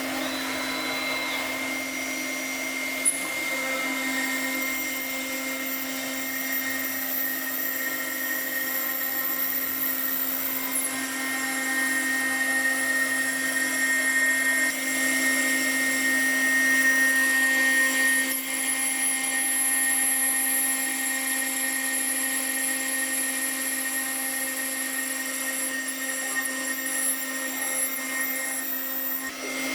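Marble CNC router spindle running with a steady high whine while machining marble, the pitch and level shifting slightly as it cuts.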